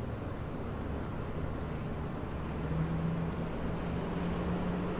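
Steady low rumbling background noise, with a faint low hum coming in about two and a half seconds in.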